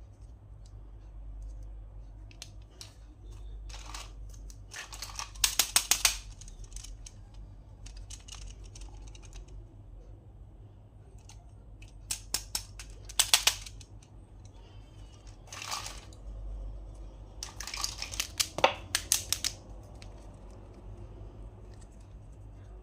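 Hands unboxing small plastic toys: several short bursts of crackling and clicking from the packaging, with quieter handling between them.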